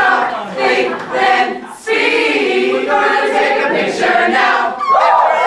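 A group of voices singing together, with no instruments heard.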